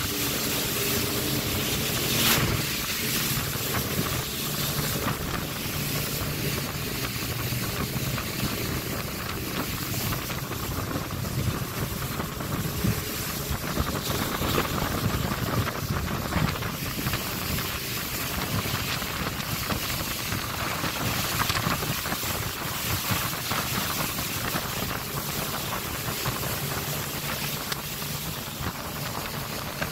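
Outboard motor of an open wooden river boat running steadily at speed, with water rushing and spraying along the hull and wind buffeting the microphone. A brief louder burst about two seconds in.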